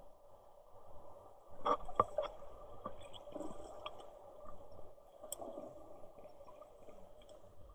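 Muffled water sloshing and gurgling, with scattered knocks and clicks, the loudest cluster about two seconds in.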